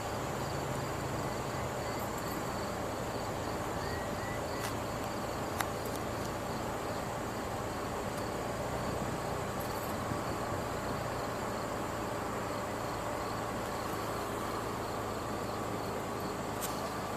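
A steady, dense chorus of insects chirring, with a fast repeating pulse high up and several constant high whines, over a low steady hum. A few faint clicks now and then.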